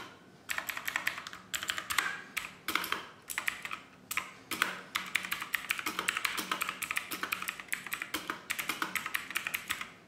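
Typing on a Redgear MK881 Invador mechanical keyboard with clicky blue switches: fast runs of sharp key clicks, with short pauses just after the start and about four seconds in.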